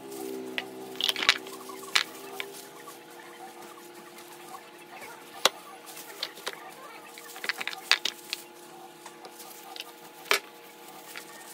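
Scattered clicks and taps of jackfruit seeds, bulbs and a knife knocking on a plate as ripe jackfruit is pulled apart by hand in thin plastic gloves, with a faint steady low hum behind.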